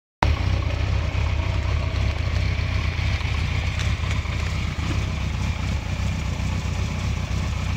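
Yamaha XJ600 air-cooled inline-four motorcycle engine idling steadily at about 1,100 rpm.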